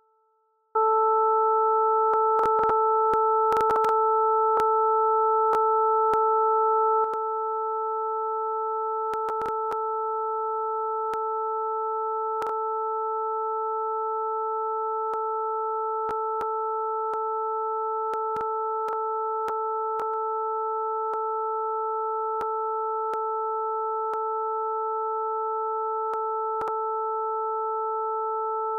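Three steady sine tones from a Web Audio oscillator at 440, 880 and 1320 Hz (A440 with its octave and the E above that), starting about a second in and held unchanged, dropping a step in volume a few seconds later. Faint clicks of typing on a computer keyboard scattered over the tones.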